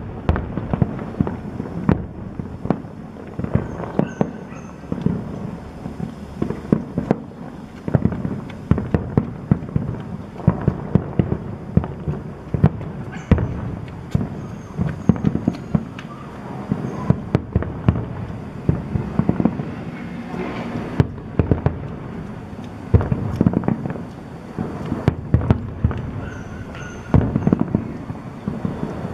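Fireworks display: a dense, continuous string of shell bursts and crackles, several bangs a second.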